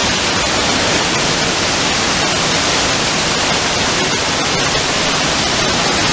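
Indoor water-curtain waterfall: a sheet of water falling close by, a loud, steady rushing hiss.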